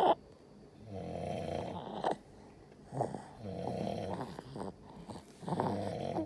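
A baby boy snoring heavily, monster-like: three long, rasping snores with short pauses between them. A sharp click comes right at the start.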